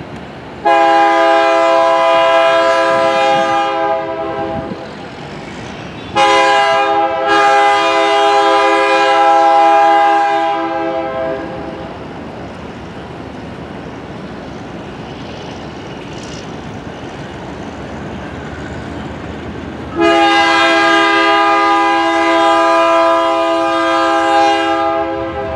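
Horn of a GE C30-S7 diesel locomotive sounding three long, loud chord blasts as it approaches a grade crossing, the second briefly broken just after it starts. Between the blasts the locomotive and its train of tank cars keep running more quietly.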